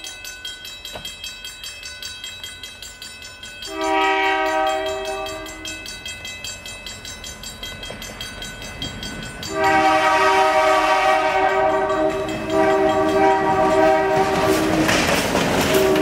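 Air horn of a CN EMD GP38-2 diesel locomotive blowing long chords of several notes: one blast about four seconds in, then two more starting near ten and twelve and a half seconds. Under the later blasts the locomotives' engines and wheels grow loud as they pass close, with clickety-clack over the rail joints.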